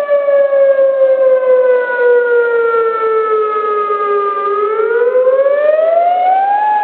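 Tornado warning siren wailing: its pitch slides slowly down for about four and a half seconds, then climbs back up near the end.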